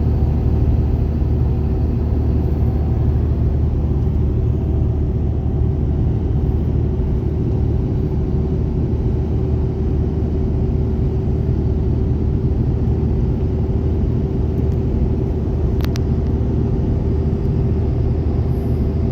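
Steady engine and tyre rumble of a car driving at road speed, heard from inside the cabin. A single brief click sounds late on.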